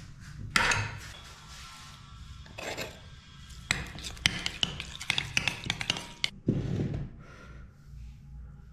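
A metal spoon scraping and clinking against a ceramic bowl while stirring a wet marinade. There is a dense run of quick clinks in the middle.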